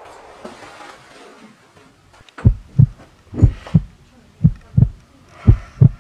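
Heartbeat sound effect: double deep thumps (lub-dub), about one beat a second, four beats starting about two and a half seconds in.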